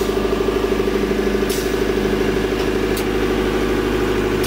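Engine-driven air compressor in a spray-foam truck running steadily, with a short hiss of air about every one and a half seconds as the pneumatic drum pump shifts stroke, drawing polyol or isocyanate from the drum.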